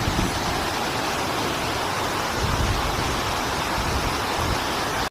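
Waterfall rushing: a steady hiss of falling water.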